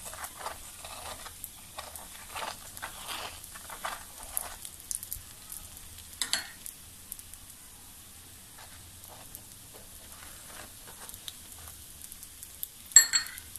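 Ghee sizzling and crackling on a hot nonstick pan under a cooking garlic paratha. A spoon is spreading the ghee, so the crackles come thickest in the first few seconds and thin to scattered pops. Near the end there is a short, sharp metallic clink.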